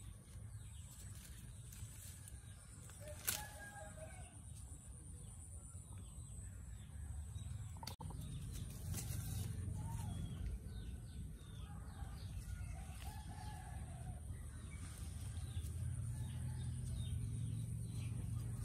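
Chickens clucking in the background, a few short calls spaced out, with a sharp click about three seconds in.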